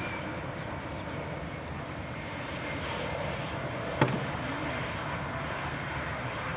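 Jet airliner's engines running steadily as it moves along the runway, a constant noise at a distance. A single sharp click about four seconds in.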